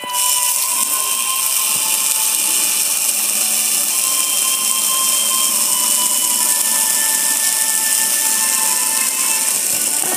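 Pressure washer running steadily, its jet of water hissing and splashing against a metal gas grill, with a faint steady motor whine underneath.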